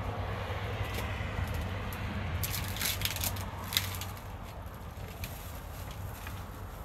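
Rustling and crackling of banana plant leaves and stalks as someone pushes in among the plants at their base, with a cluster of sharp crackles about two and a half to four seconds in, over a steady low hum.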